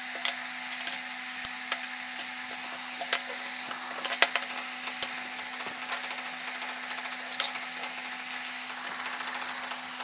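Scattered light clicks and knocks as pedestal fan parts, the stand pole, bracket and locking knob, are handled and fitted together, over a steady background hum.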